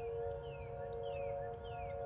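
Outdoor tornado warning siren holding a steady tone made of several pitches at once, with a songbird repeating a short falling whistle about twice a second over it.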